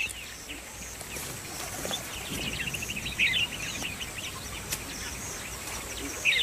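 Small wild birds chirping and trilling in quick repeated notes, with a louder call about three seconds in and another near the end.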